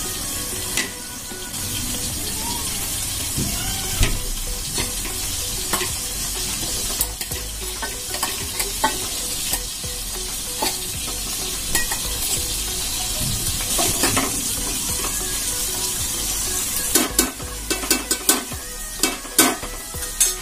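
Masala frying and sizzling in oil in a steel pot, with a metal spoon scraping and clicking against the pot as cubed boiled potato is stirred in. Scattered clicks throughout and a quick run of spoon knocks near the end.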